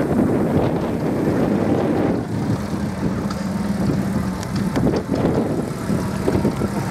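Classic cars' small four-cylinder engines running at low speed as they drive slowly past: a Nash Metropolitan, then a small Austin saloon passing close, with a steady low engine note.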